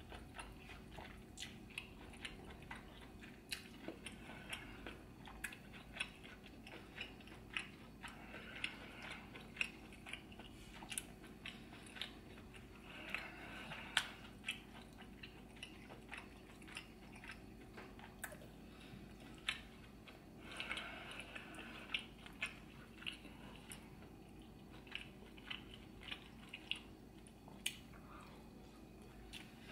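Close-up sound of a person chewing and eating seafood boil in butter sauce, with irregular mouth clicks and lip smacks several times a second.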